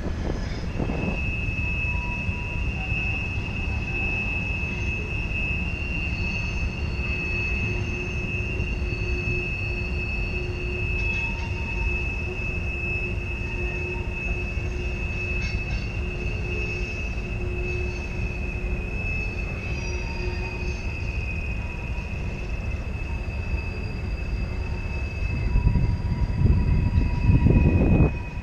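Freight train cars rolling through a tight curve, their wheel flanges squealing in a steady high-pitched tone over a continuous low rumble of wheels on rail. The rumble grows louder for the last few seconds.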